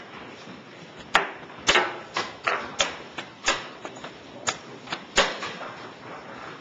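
Wooden chess pieces being set down and knocked quickly on a board: about ten sharp, uneven clacks over some four seconds, starting about a second in.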